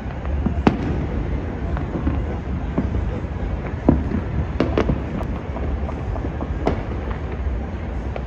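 Distant fireworks popping and cracking at irregular intervals over a steady low rumble. The sharpest cracks come just under a second in and again about four seconds in.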